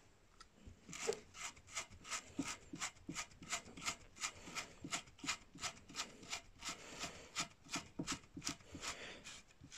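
Threaded locking ring of a fishing rod's screw reel seat being twisted tight by hand to clamp a spinning reel's foot in place. It makes a run of short rasping strokes, about three a second.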